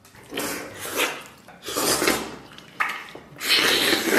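Biting and chewing sounds of a person eating a braised pork elbow held in the hands, in a series of short bursts, the loudest near the end.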